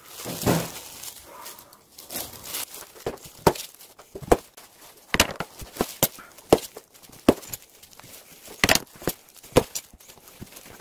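Kitchen knife slicing peeled mandarin oranges on a plastic cutting board. The blade taps the board in irregular sharp clicks, more than a dozen of them.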